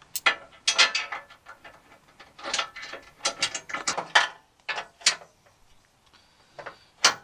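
Hand ratchet wrench clicking in short, irregular runs as bolts are turned, with pauses between the runs.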